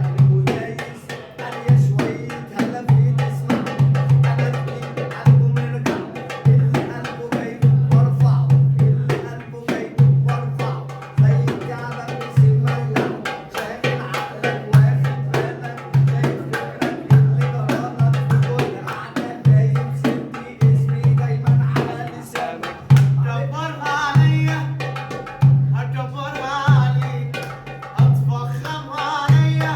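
Music with a repeating heavy bass pulse and dense, fast hand-drum style percussion.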